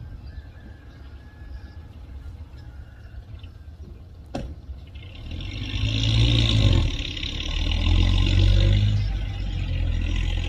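Heavy diesel engine of earthmoving machinery running low, a single sharp knock about four seconds in, then the engine revs up loud from about five seconds in, surging twice, with a rushing, clattering noise on top.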